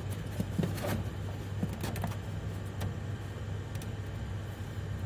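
Scattered light clicks and knocks, roughly one a second, of parts being handled while fitting an air conditioner's indoor fan motor into a cramped housing, over a steady low hum.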